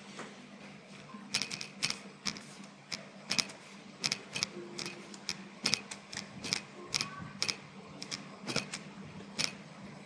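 Typing on a computer keyboard: irregular keystrokes, some in quick pairs and small clusters, over a faint steady hum.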